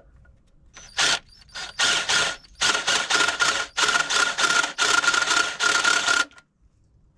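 Power drill with a countersink bit run in a series of short bursts, bevelling the mouth of a tapped bolt hole for a Time-Sert insert. A steady motor whine runs under the cutting noise. It is pulsed so the depth of the bevel can be controlled; the bursts stop about six seconds in.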